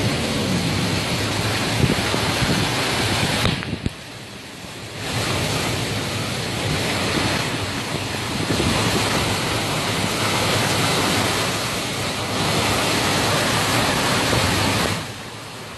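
Steady rushing noise of heavy rain and floodwater. It drops away briefly about four seconds in and again near the end.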